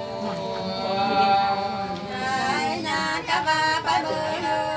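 Unaccompanied Sli folk singing of the Nùng people: voices singing together, holding long drawn-out notes.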